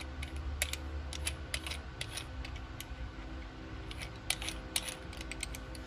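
Small, irregular metal clicks and ticks as the knurled calibration sleeve of a 3/8-inch click-type torque wrench is turned and unscrewed by hand from the handle barrel, over a steady low hum.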